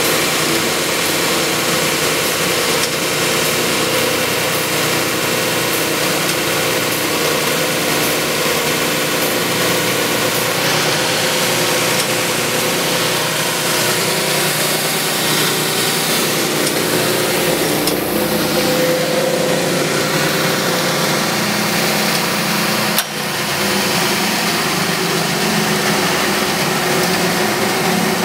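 Timesaver belt grinder with a 7½-horsepower motor running steadily: a loud machine hum and whir. There is one sharp click with a brief drop in level about three-quarters of the way through.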